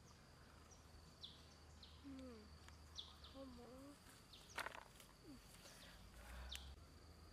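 Faint rural ambience: a steady high-pitched insect drone with scattered short bird chirps, and one sharp knock about halfway through.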